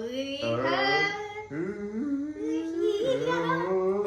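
A person imitating a water buffalo with their voice: several long, drawn-out moo-like calls that glide up and down in pitch.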